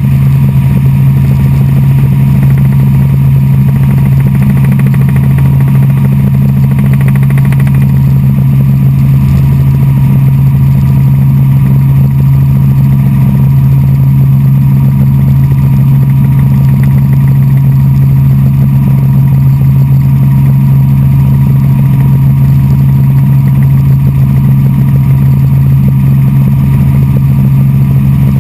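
Light helicopter's engine and main rotor in steady cruise, heard from inside the cabin: a loud, unchanging drone with a slow, even throb beneath it.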